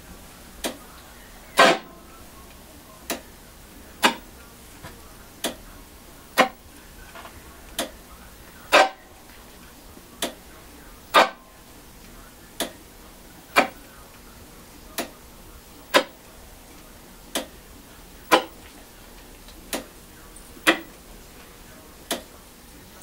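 Small 13-inch CRT television switched on and off over and over by its power button: about twenty sharp clicks, roughly one a second, louder and softer clicks alternating. This on-off cycling is the owner's workaround to get the set to come on without its volume at full blast.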